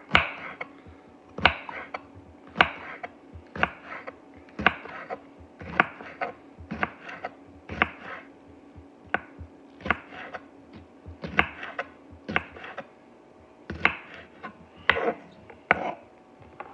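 Large kitchen knife chopping jalapeño peppers, the blade knocking down onto the board with sharp, regular cuts about once a second, often in quick pairs.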